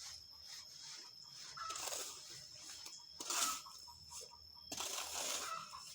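Sand hissing through a sifter screen in several bursts, the loudest about three seconds in.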